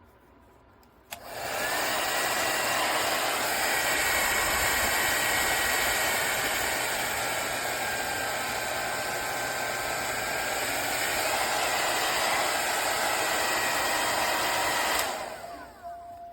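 CONFU 1600W ionic hair dryer switched on about a second in with a click, then running steadily with a rushing airflow and a fan whine that shifts pitch a couple of times. It is switched off near the end and winds down with a falling whine.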